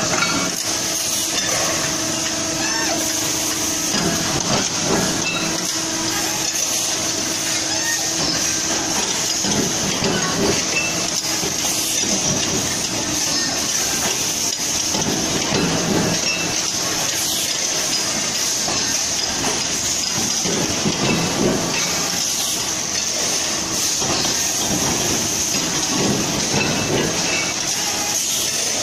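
Pressure cooker production line machinery running: a steady mechanical hiss and hum with irregular knocks from the presses and forming machines.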